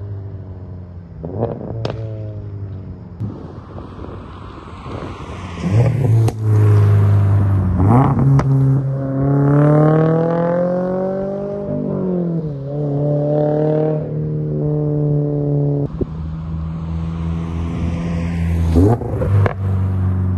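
2022 Toyota GR86's flat-four running through an aftermarket cat-back exhaust. The engine note falls and settles at first, then about six seconds in it gets louder and climbs in pitch under acceleration for several seconds. It drops sharply about twelve seconds in, as on a shift or lift, then holds steady, with a few sharp cracks near the end.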